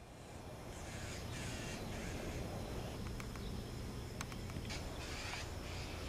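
Crows cawing: two runs of about three harsh caws, the first in the opening two seconds and the second near the end, with a few faint ticks between them over a steady low rumble.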